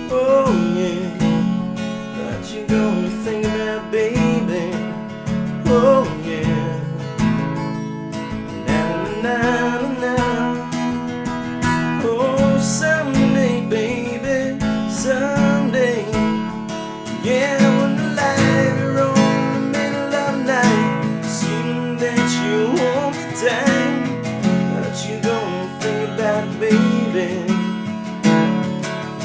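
Music without sung words: strummed acoustic guitar chords under a wavering lead melody line.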